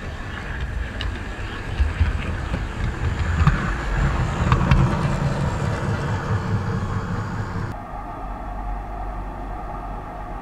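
OO gauge model train running past on the track: a motor hum and wheel rumble with scattered clicks from the rail joints, swelling and loudest about four to six seconds in. The sound cuts abruptly to a quieter, duller hum about eight seconds in.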